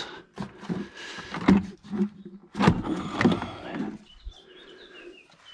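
Plastic knocks, clicks and rattles of a Toyota GR Yaris's stock air box and intake hose being taken apart by hand, loudest about a second and a half and two and a half seconds in, then quieter handling.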